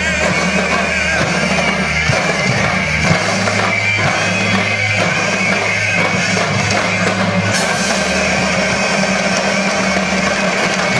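Drumline music: a large ensemble beating drums and cymbals together over sustained bass notes.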